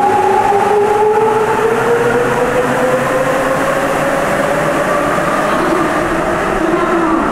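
Sapporo subway Toho Line 9000-series train accelerating away from the platform. The traction motors' whine rises steadily in pitch over the rumble of its rubber tyres.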